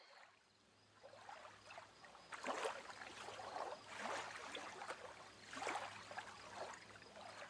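Faint water lapping and splashing against a boat's hull, coming in soft swells about every second and a half.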